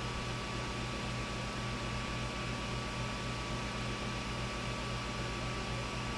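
Creality Ender 5 Plus 3D printer idling while it heats up: its cooling fans running with a steady hum and a thin high tone.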